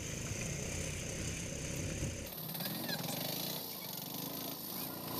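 Autorickshaw engine running steadily as the three-wheeler drives along, heard from inside the passenger cabin. About two seconds in, the deepest part of the rumble drops away suddenly and a lighter hum carries on.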